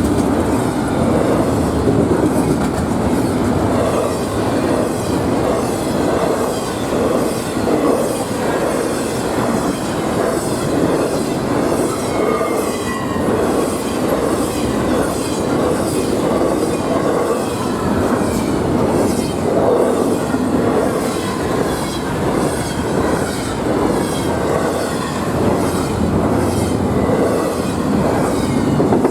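Freight train cars rolling past at steady speed, the wheels clicking over the rail joints at an even rhythm of about one and a half clicks a second over a continuous rumble.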